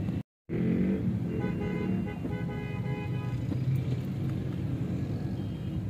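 Dense city street traffic of cars and motorcycles running, heard from inside a moving car, with a vehicle horn sounding for about two seconds a little after the start.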